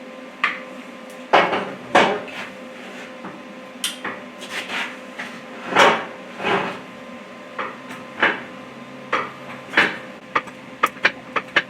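Irregular metal knocks and clanks of hand tools against the steel of a Caterpillar D330 diesel engine block while a cylinder liner is being pulled, over a faint steady hum. Near the end the strikes turn into a quicker run of light clinks, about three a second.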